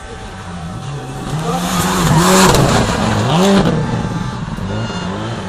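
Subaru rally car's turbocharged flat-four engine revving hard. Its pitch repeatedly climbs and drops, about once a second, growing louder from about a second in and loudest in the middle.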